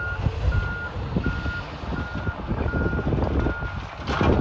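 Heavy machine's backup alarm beeping steadily, about three beeps every two seconds, over the low rumble of diesel machinery and wind on the microphone. A louder burst of noise comes near the end.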